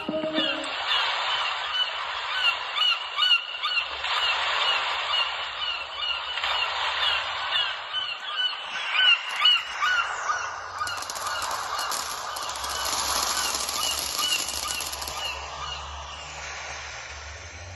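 A flock of geese honking, many overlapping calls, played as a phone ringtone; the honking thins out and gets quieter toward the end.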